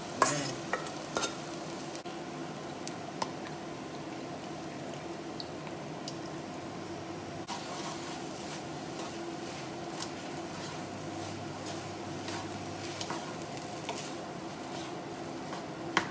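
Rice frying in a non-stick wok with a steady sizzle, stirred and tossed with a wooden spatula. Now and then the spatula gives a light tap or scrape against the pan.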